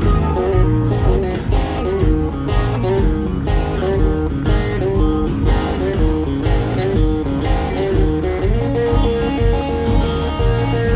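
Live blues band playing, with an electric guitar playing a lead line over drums, bass and keyboards. One note is held steady through the last couple of seconds.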